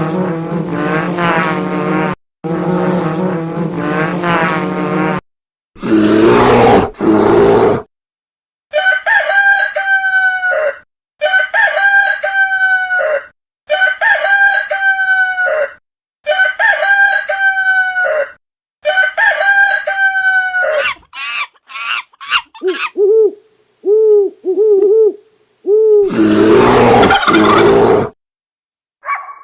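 A rooster crowing about six times in a row, each crow lasting about a second and a half with a short gap between, followed by a run of short, lower clucks from chickens. Different, unrelated sound clips come before and after the crowing.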